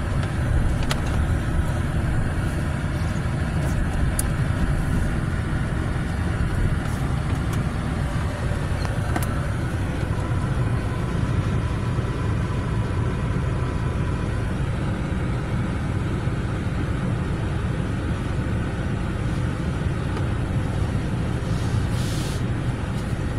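Automatic tunnel car wash heard from inside a closed pickup cab: a steady low rumble with water and soap spray rushing over the glass and body, and a few light ticks.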